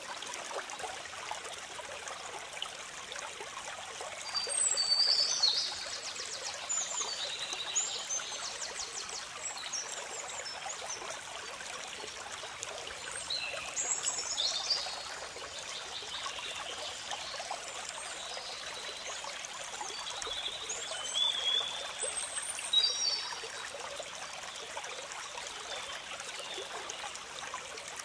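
Running water trickling steadily, with brief high chirps breaking in three times: about 4 seconds in, around the middle, and again near 21 seconds.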